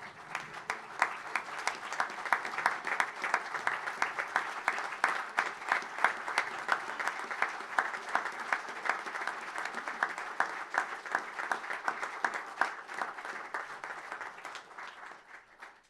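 A group of people applauding: steady, dense clapping that thins out and fades near the end.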